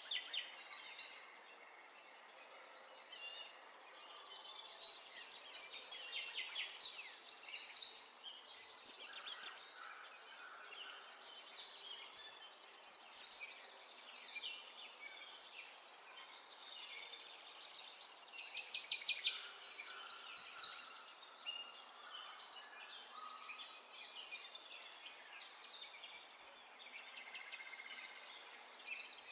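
Small birds chirping in quick, high trilled phrases a second or two long, repeating every few seconds over faint outdoor background noise.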